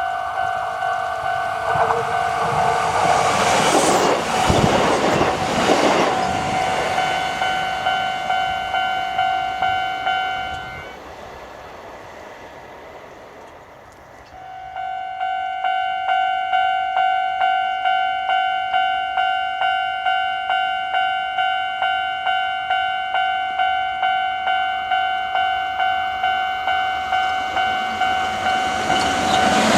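Japanese level-crossing warning bell ringing in a fast, even run of dings while a Kintetsu Minami Osaka Line train rushes through a few seconds in. The bell stops about eleven seconds in, then starts ringing again a few seconds later as another train approaches and begins to pass near the end.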